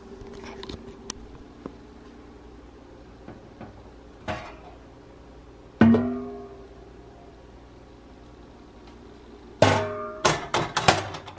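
Metal cookware clanking on an electric coil stovetop as the kettle and a steel frying pan are lifted and moved: a few light knocks, one sharp clank with a short ringing tone about six seconds in, then a quick run of metal-on-metal clatters near the end.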